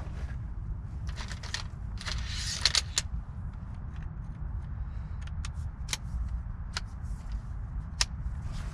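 Camping gear being handled: rustling, a crinkly patch and several sharp clicks, over a steady low rumble of distant highway traffic.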